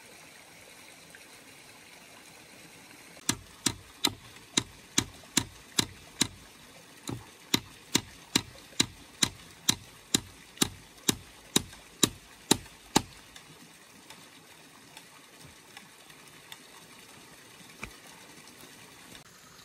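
Hand hammer striking at the foot of a wooden fence post: a run of about two dozen sharp blows at roughly two to three a second, with a short break after the first nine, stopping about two-thirds of the way through.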